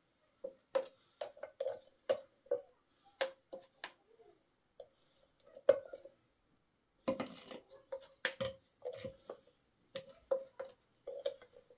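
Plastic PVC pipe fittings and a small tin of pipe cement being handled: irregular sharp clicks and hollow knocks, each with a brief ring, and a longer scraping rustle about seven seconds in.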